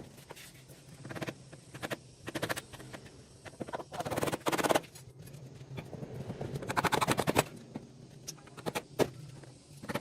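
A power hammer strikes in short bursts of rapid, evenly spaced blows, the longest about a second, the pattern of chipping into masonry during house repair work. A low, steady hum runs under it.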